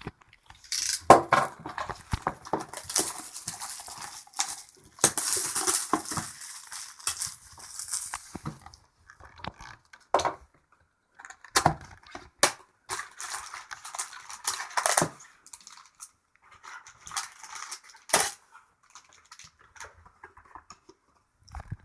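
A sealed box of hockey card packs being unwrapped and opened by hand: wrapper and cardboard crinkling and rustling for several seconds, then scattered clicks and knocks as the box and packs are handled.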